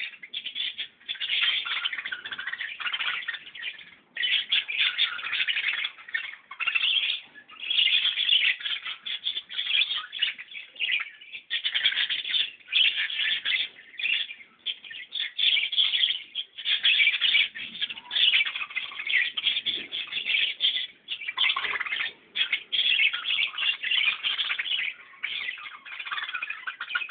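Many birds chirping at once in dense, overlapping calls, coming in runs of a second or two with short breaks between them.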